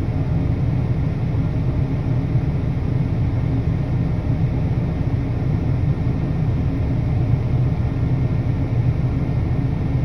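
Snow-plowing vehicle's engine running steadily with a low rumble while clearing a deep snow drift.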